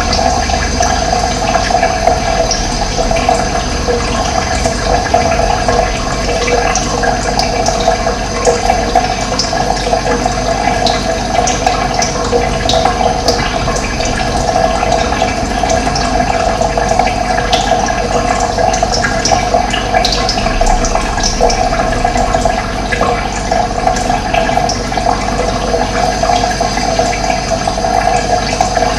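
Running water making a steady, unbroken rush, with short high bird chirps scattered through it.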